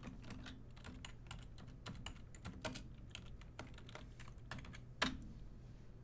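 Typing on a computer keyboard: an irregular run of key clicks, with one louder click about five seconds in.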